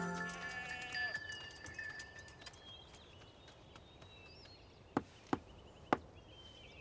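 Three knocks on a wooden door, about five seconds in and close together, over faint birdsong. Background music fades out in the first second.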